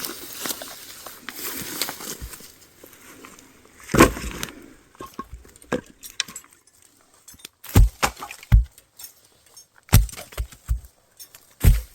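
Rustling for the first few seconds, then a loud knock about four seconds in, followed by several separate deep thuds and knocks spaced a second or two apart.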